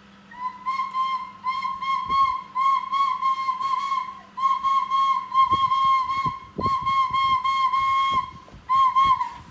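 A high warbling whistle that trills at a steady pitch in quick pulses. It comes in several runs broken by short pauses, with a few soft knocks partway through.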